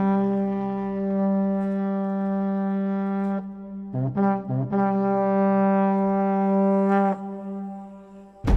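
Background music: a low brass note held for about three seconds, a few short notes, a second long held note, then a heavy drum hit just before the end.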